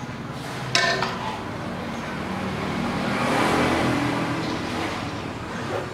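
A motor vehicle passing, its engine noise swelling to a peak mid-way and then fading, with a sharp click just under a second in.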